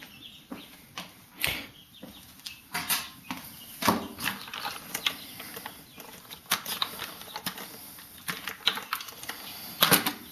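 Irregular clicks, taps and rustling of objects being handled, with no steady rhythm.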